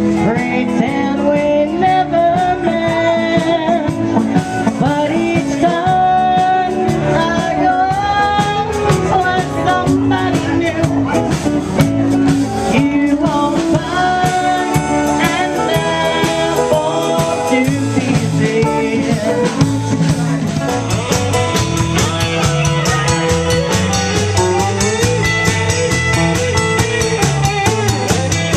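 A band playing blues-rock with guitar, loud and steady throughout.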